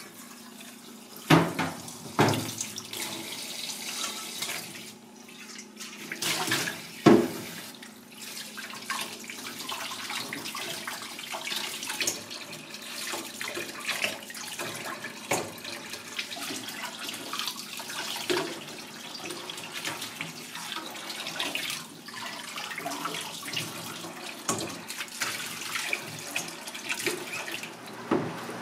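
Tap water running steadily into a metal pan in a stainless steel sink as blanched john dory bones are rinsed. There are a few loud knocks in the first seven seconds.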